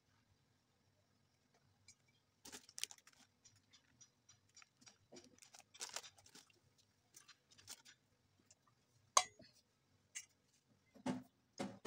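Faint kitchen handling sounds: hands working soft dough on a steel plate and dusting flour, heard as scattered light taps and rustles, with one sharp click about nine seconds in. Near the end a quick run of rhythmic knocks begins.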